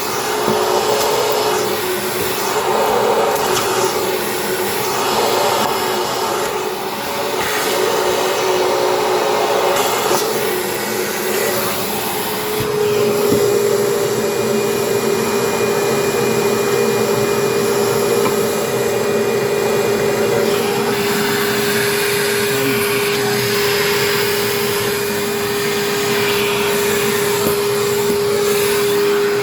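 Vacuum cleaner running continuously while vacuuming a kitchen floor. Its motor whine wavers in pitch for the first half, then settles into one steady tone.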